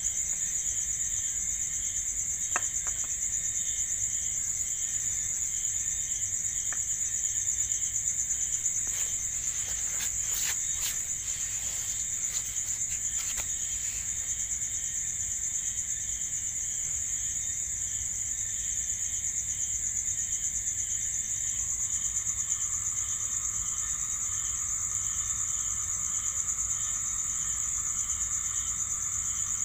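Night insects trilling steadily: one high continuous trill, with a lower, evenly pulsing chirp beneath it and another faint trill joining about two-thirds of the way through. A few light clicks and taps come between about 9 and 14 seconds in.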